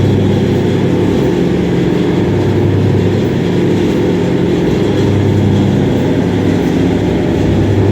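Electric-motor-driven soybean washing machine running steadily, a loud, even mechanical hum.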